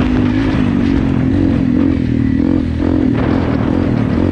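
Single-cylinder motorcycle engine running under way, its pitch wavering slightly up and down with the throttle, over the rumble and rattle of the ride.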